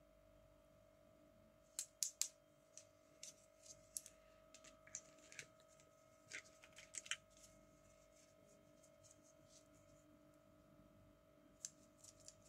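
Light plastic clicks and taps of toy doctor-set instruments (toy scissors and forceps) being handled: a flurry of sharp clicks in the first half, a few more near the end, over a faint steady hum.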